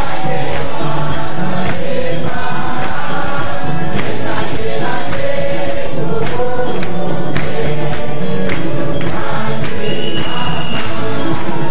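A church congregation sings a praise song together over a steady beat of sharp percussive hits.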